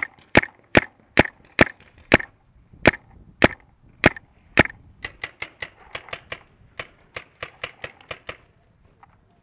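Shocker RSX paintball marker firing: a string of sharp, loud shots a little over two a second, followed about 5 seconds in by a faster run of quieter pops, about five a second, that stops suddenly near the end.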